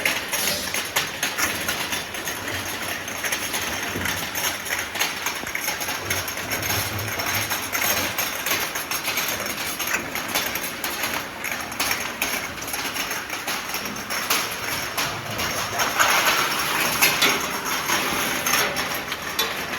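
Glass vial washing machine running, with a dense, continuous clatter of glass vials clinking and tapping as they move through it, a little louder about three-quarters of the way through.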